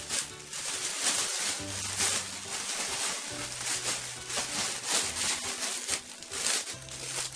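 Cellophane paper crinkling and rustling in irregular bursts as it is handled and layered, over background music with held bass notes.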